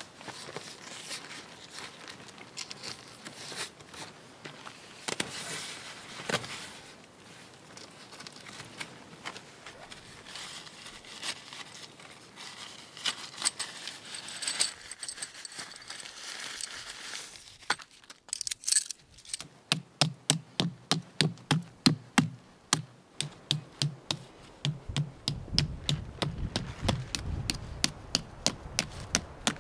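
Rustling and small clicks as a lightweight Naturehike tent is handled and pitched. Then a rock strikes a tent stake over and over, a steady run of sharp knocks about two to three a second with one short pause, driving the stake into the ground.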